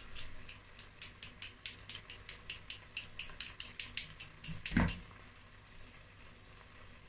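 A table knife scraping and tapping ginger-garlic paste out of a small container into a pot: a quick series of short scrapes and clicks, about four or five a second, then one louder knock just under five seconds in.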